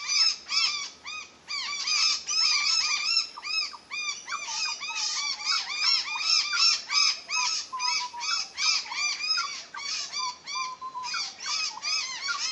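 Grey butcherbird giving a long run of short, rising-and-falling calls, about three a second. A second, lower wavering call runs under them through the middle.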